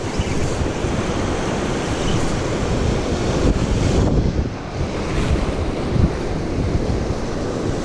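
Surf breaking on a rocky shore, a steady rush of waves, with wind rumbling on the microphone.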